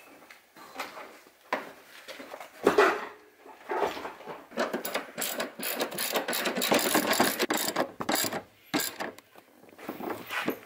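Hand socket ratchet clicking rapidly in quick strokes as the seat-bracket bolts are run down into the car's floor. Before it come a few scattered knocks and one louder thump as the seat is handled into place.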